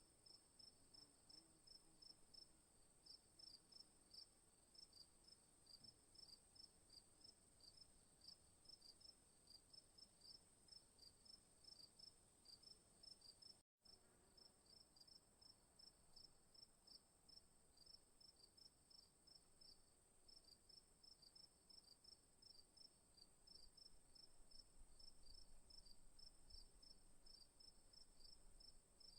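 Night chorus of crickets, faint: a steady high-pitched trill under rapid, regular chirps. The sound cuts out completely for a moment about fourteen seconds in.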